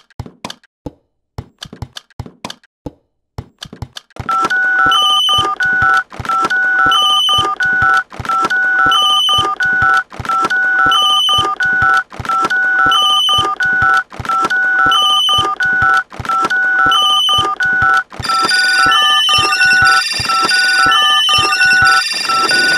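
Electronic telephone-style ringing tones: a fast two-note warble over a steady tone, repeating in bursts about a second long, starting about four seconds in after a run of sharp clicks. More high beeping tones join near the end.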